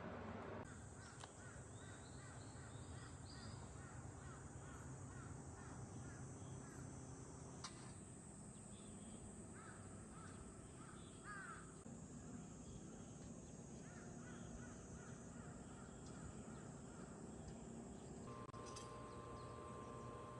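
Faint outdoor ambience of birds calling, with crows cawing, over a steady thin high-pitched whine.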